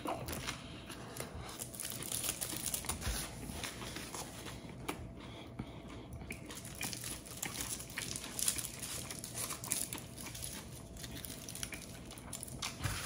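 Aluminium foil wrapped around a baguette sandwich crinkling in the hands as it is held and bitten, with chewing. Irregular short crackles come throughout.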